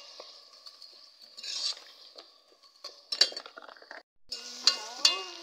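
Metal ladle stirring and scraping in a metal cooking pot, with sharp clinks against the pot, over the sizzle of onions, tomatoes and green chillies frying in ghee. The clinks come more often and louder after a brief drop-out about four seconds in.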